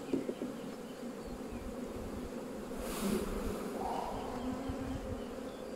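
Honeybees buzzing in a steady hum around an opened hive, the colony's bees crowding over the brood frames.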